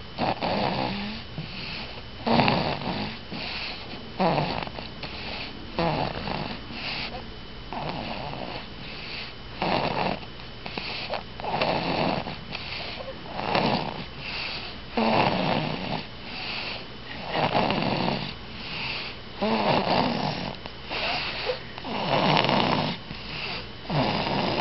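Steady, rhythmic snoring of a sleeper named Kyra, with one snore about every two seconds.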